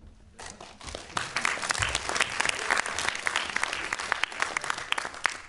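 Audience applauding: many hands clapping, starting about half a second in, swelling about a second in, and stopping abruptly near the end.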